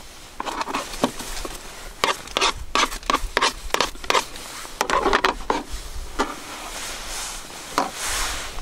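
Kitchen knife knocking and scraping on a thin plastic cutting board while trimming enoki mushrooms, with the board itself being handled: an irregular run of sharp knocks and scrapes, busiest about two to three and a half seconds in.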